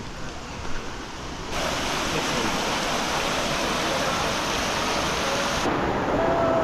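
Rushing water of a waterfall: a steady, even noise that starts abruptly about a second and a half in and holds on through several cut shots.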